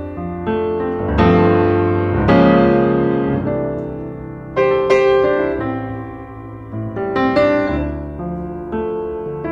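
Piano music: notes and chords struck every second or two and left to ring out and fade.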